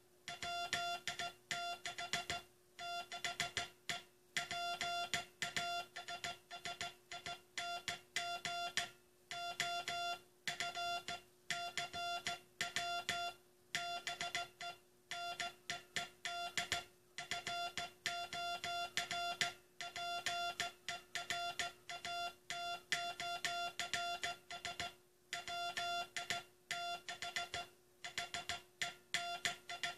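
Morse code (CW) being sent as a single steady-pitched beep keyed on and off in dots and dashes, with short gaps between letters and longer gaps between words. A faint steady hum runs underneath.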